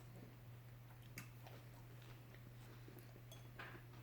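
Faint chewing and mouth sounds from eating a BLT sandwich, with a few soft clicks about a second in and near the end, over a steady low hum.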